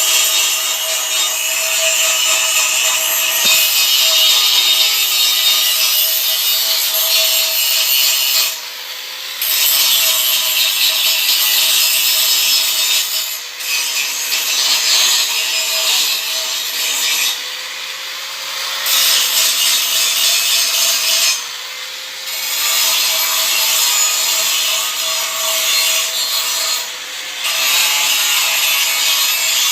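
Angle grinder grinding down weld seams on metal: a steady motor whine under a loud, harsh grinding hiss. The grinding drops out briefly about five times while the motor keeps running.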